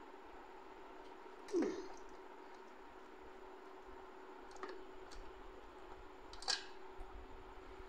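Screwdriver working the front screws of an inkjet printer's plastic housing: a few light clicks and scrapes. The loudest is a sharp click with a short falling squeak about a second and a half in, and another sharp click comes near the end, over a faint steady hum.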